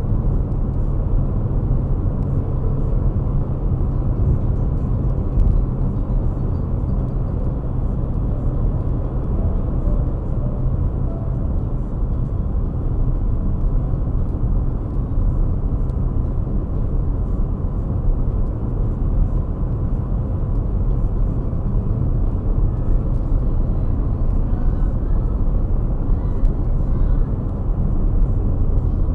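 Steady low rumble of a car driving at road speed, its engine and road noise heard from inside the cabin.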